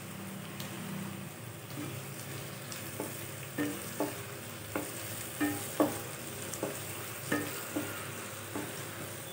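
Onions, garlic and chopped tomatoes sizzling in a non-stick kadai while a wooden spatula stirs them. From about two seconds in, the spatula knocks and scrapes against the pan in short strokes, roughly every half second to second.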